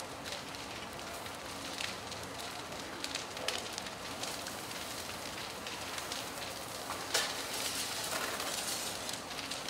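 House fully involved in fire, burning with a steady hiss and scattered crackles and pops. There is a sharper crack about seven seconds in, followed by a denser hiss.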